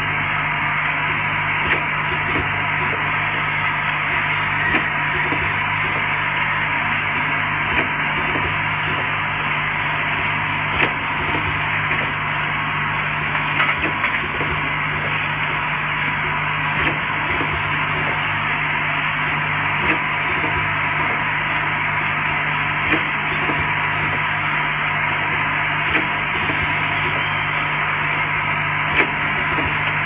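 YX-50G rotary filling, plugging and capping machine running, a steady mechanical whir over a low hum. A short, sharp click comes about every three seconds.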